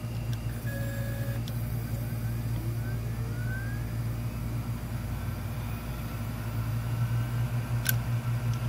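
Seagate Barracuda 7200.10 hard drive powered up after a platter transplant, running with a steady low hum. Faint rising whines come in the first few seconds, and a single sharp click comes near the end, as it tries to calibrate.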